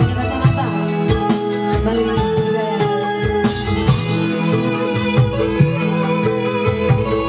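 Live band music with an electronic keyboard playing organ-like sustained chords over a steady drum beat, and a woman singing into a microphone.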